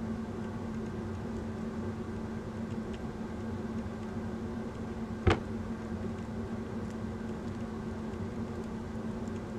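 Steady mechanical hum with a constant low tone, broken once about five seconds in by a single sharp click.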